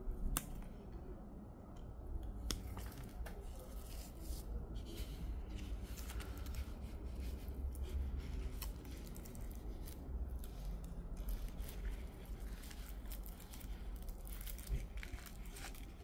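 Bonsai pruning scissors snipping small Chinese juniper branches, a run of irregular sharp clicks with the foliage rustling, as the branches are thinned out.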